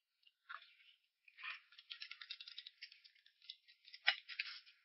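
A dense run of rapid small clicks and rattles, beginning with a couple of short sounds and continuing almost without pause, with one sharper click near the end.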